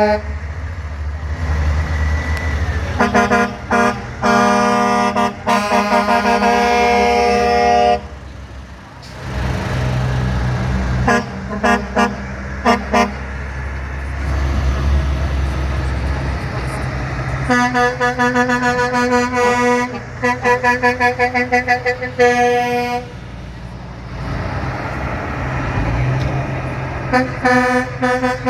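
Truck horns blowing over the low rumble of passing engines: a long horn blast, then a few short toots, then a rapid series of horn blasts, and more short blasts near the end.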